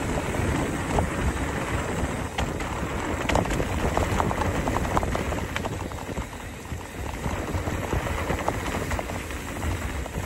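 Mountain bike descending a dirt trail at speed: wind buffeting the microphone, tyres rolling over dirt and gravel, and the bike rattling with many scattered clicks and knocks.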